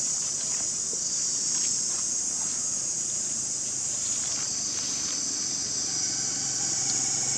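A steady, high-pitched chorus of insects buzzing without a break. A faint low hum joins near the end.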